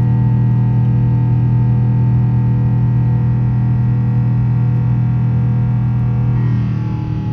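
Airbus A350's Rolls-Royce Trent XWB engines heard inside the cabin during the climb after takeoff: a loud, steady drone of several held tones. Near the end it drops slightly in level and its tones shift.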